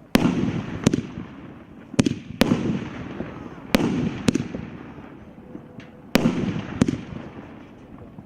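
A 25-shot, 50 mm fireworks battery firing. Eight sharp bangs come in pairs about half a second apart, a pair every one and a half to two seconds, each bang followed by a fading crackle.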